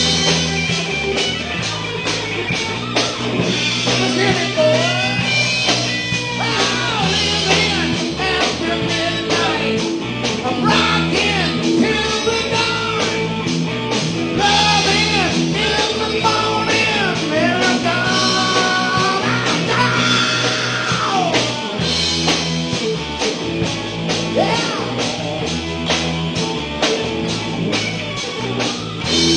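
Live rock band playing a song: drums keeping a steady beat under bass and electric guitar, with a lead line that bends up and down in pitch.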